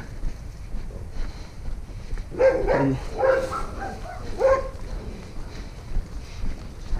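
A dog barking about five times in quick succession, between two and five seconds in. It is typical of a house dog barking territorially at a dog passing in the street.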